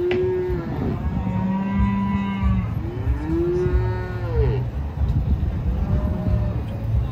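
Cattle mooing: a few long, drawn-out moos one after another, one low and flat, the next rising and falling, and a shorter, fainter one near the end.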